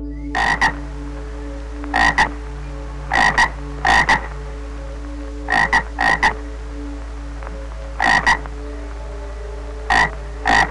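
Frog croaking in short double croaks, about nine times, each pair coming a second or two after the last.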